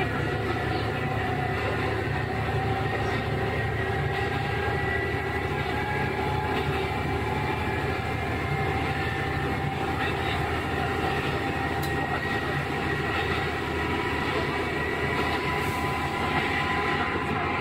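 KiHa 11 diesel railcar running along the line, its ex-JR Central Cummins diesel engine droning steadily together with the running noise of the car.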